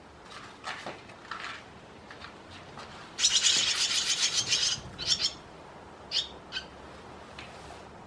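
Young barn swallows begging as a parent arrives to feed them: a loud chorus of rapid, high chirps lasting about a second and a half, a few seconds in, then a few single chirps. A few faint chirps come before it.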